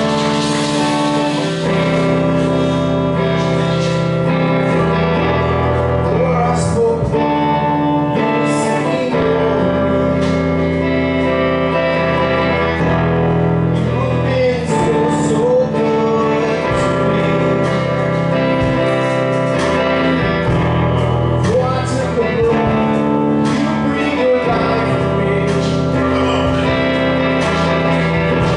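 A gospel song performed live, with instrumental accompaniment and a singing voice.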